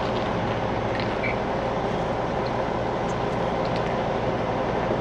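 Steady running of a Peterbilt semi truck's Cummins X15 diesel engine at low speed as the truck creeps slowly through a turn.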